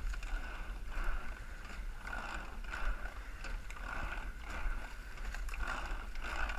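Eight-oared racing shell rowed at race pace: water rushing along the hull and oars, swelling with each stroke about every second and three-quarters, with faint knocks from the oars and rigging.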